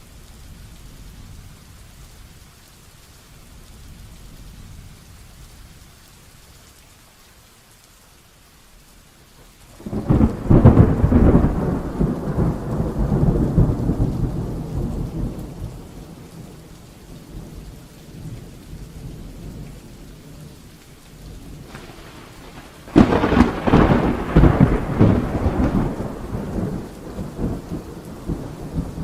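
Heavy rain falling steadily, broken by two loud claps of thunder: the first about a third of the way in, the second about four-fifths of the way in, each rumbling away over several seconds.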